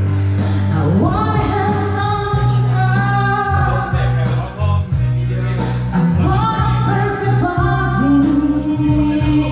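Woman singing karaoke over a backing track, holding long notes that bend in pitch above a steady bass line.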